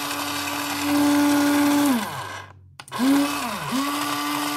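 X-ACTO Mighty Mite electric pencil sharpener's motor whirring steadily as a pencil is fed in. It gets louder about a second in as the pencil is pressed against the cutter, then winds down with a falling pitch. It starts up again twice, briefly, each time sliding down in pitch as it stops.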